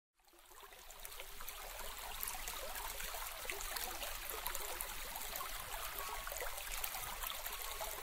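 A steady trickling, stream-like water sound with fine crackles, fading in over the first second or two.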